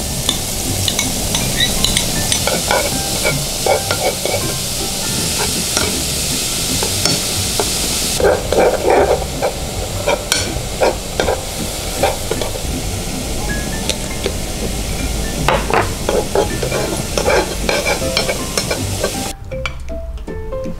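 Finely chopped mushrooms sizzling in olive oil in a ceramic-coated frying pan, stirred and scraped around with a metal spoon. The sizzle is strongest in the first half; after that the scraping strokes and small taps of the spoon stand out, and the hiss falls away near the end.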